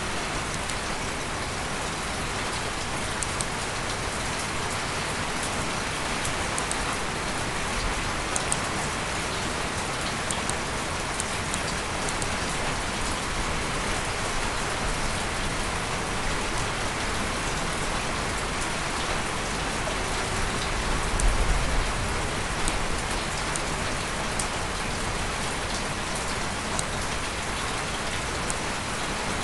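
A steady, even hiss with scattered faint ticks, and a brief low rumble about 21 seconds in.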